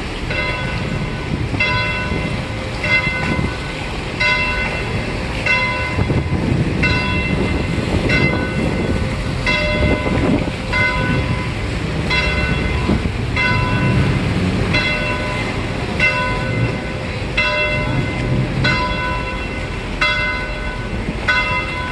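A church bell tolling steadily, one ringing stroke about every 1.3 seconds, over the low rumble of passing motorboats and churned water.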